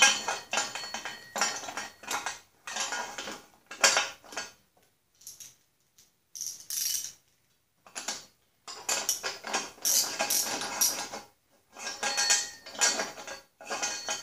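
Ratchet clicking and steel washers and plate clinking as a nut is backed off the threaded-rod bushing puller on a mower fender. It comes in irregular spurts with short pauses, and the nut is stiff to back off the worn rod.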